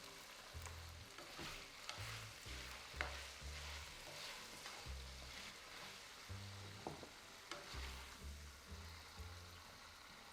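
Food sizzling in oil in a frying pan while it is stirred, with a steady hiss and now and then a sharp click of the utensil against the pan.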